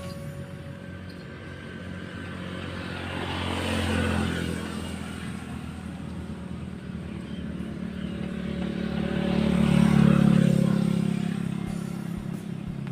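Two motor vehicles passing by in turn, engine noise rising and fading each time: the first peaks about four seconds in, the second, louder one about ten seconds in.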